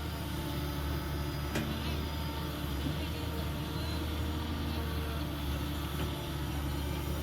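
JCB 3DX backhoe loader's diesel engine running steadily while working, with a single sharp knock about one and a half seconds in.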